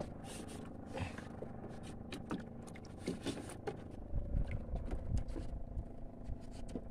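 Small boat engine running at a steady drone while the boat moves, with scattered short knocks against the wooden hull.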